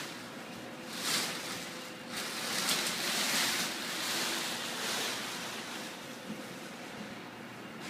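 Rustling and swishing of the plastic wrapping around a vacuum-compressed foam mattress as it is handled and the mattress unrolls. The sound swells about a second in and is loudest from about two to five seconds in.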